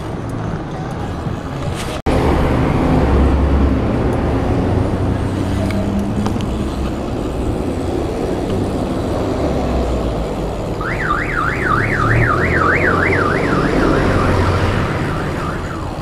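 Street traffic and wind rumble picked up by a camera on a BMX rider moving through city streets. About eleven seconds in, an electronic siren sweeps rapidly up and down, about three sweeps a second, for some four seconds.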